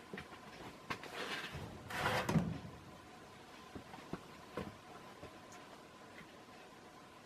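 NuTone Proline 2 ceiling fan running, with a faint steady tone and scattered light ticks. A brief, louder noise about two seconds in.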